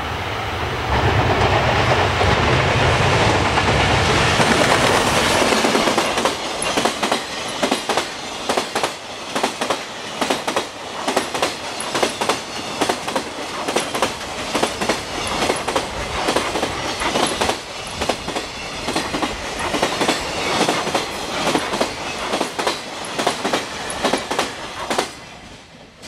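Long freight train passing at speed over jointed rail. A loud, dense rumble as the locomotive goes by in the first few seconds gives way to a steady run of clickety-clack as each wagon's wheels strike the rail joints. The clacking stops abruptly near the end as the last wagon clears.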